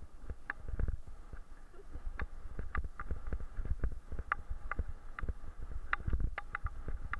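Bicycle being towed fast over a rough grass track, picked up by a camera mounted on the bike: a low rumble from the bumps and wind, with irregular sharp rattling clicks from the bike's frame and fittings, about two or three a second.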